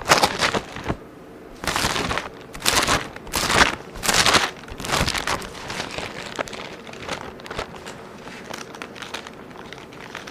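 Thin Bible pages being leafed through: a quick series of papery swishes and rustles over the first five seconds or so, then fainter, smaller rustles.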